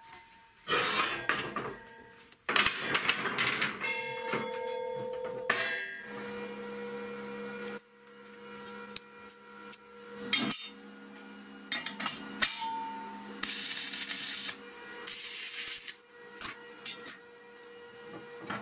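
Clanks and knocks of a square-tube steel frame being handled on a steel welding table, with two short bursts of welding hiss a little after the middle.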